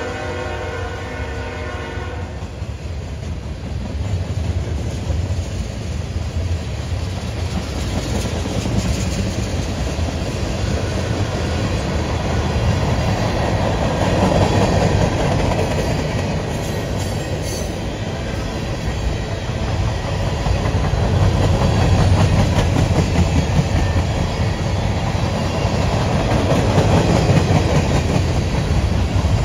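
Freight cars (covered hoppers and tank cars) rolling past with a steady wheel rumble and clickety-clack over the rail joints, swelling and easing as the cars go by. A locomotive horn sounds at the start and cuts off about two seconds in.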